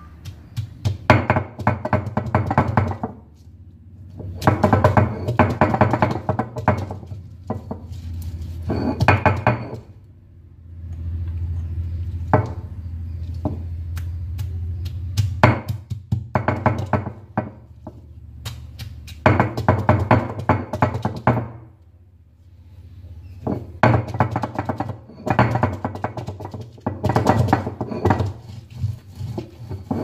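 Stone roller of a grinding stone (ammikkallu) knocking and rolling over shallots on the stone slab, crushing them coarsely. The strokes come in several bursts of rapid stone-on-stone knocks, with short pauses between.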